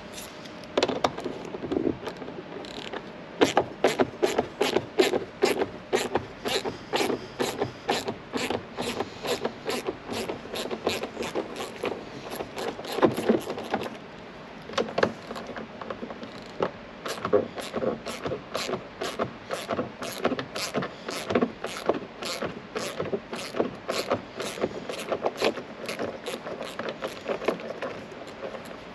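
Hand ratchet wrench clicking steadily, about three clicks a second, while backing out 10 mm bolts. A short break about halfway through splits it into two runs, one for each bolt.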